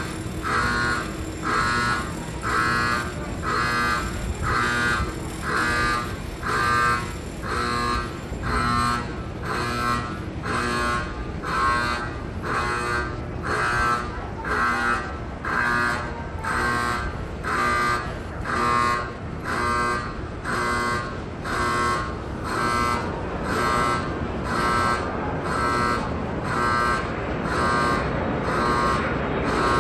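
Station platform emergency alarm beeping about once a second, each beep several tones sounding together. Near the end a train pulls into the platform with a rising rumble under the beeps.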